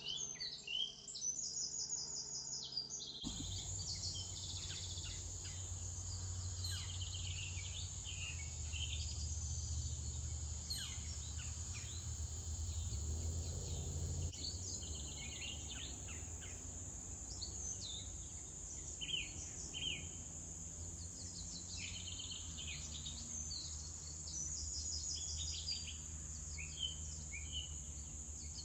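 Steady high-pitched chorus of late-summer insects, with repeated pulsing insect trills and scattered short bird chirps. A low rumble sits underneath.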